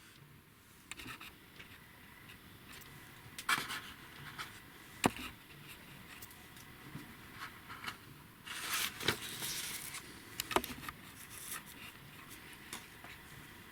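Faint handling sounds: scattered light clicks and knocks, with a short stretch of scraping and rustling a little past the middle.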